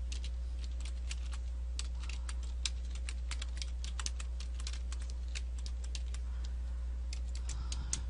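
Typing on a computer keyboard: a quick, irregular run of key clicks with a short lull near the end, over a steady low hum.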